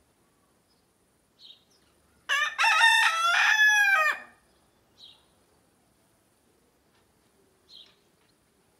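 A rooster crowing once, one loud call of about two seconds starting about two seconds in.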